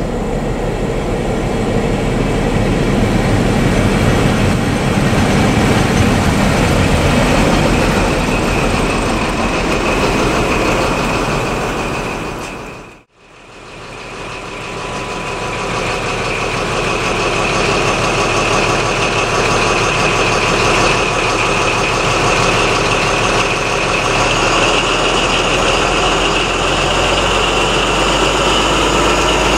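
Class 43 HST power car's Paxman VP185 V12 diesel: first the train running into the platform, then, after a brief dropout about halfway, the power car standing and idling with a steady high whine over the engine note.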